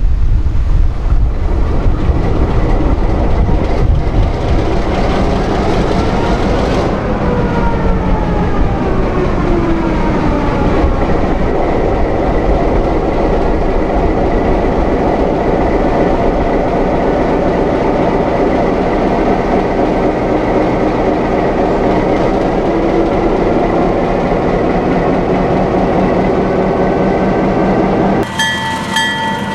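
EMD GP-series diesel road-switcher locomotive running steadily as it moves slowly along the track, with a tone rising and then falling in pitch partway through. Its multi-chime air horn starts to sound about a second before the end.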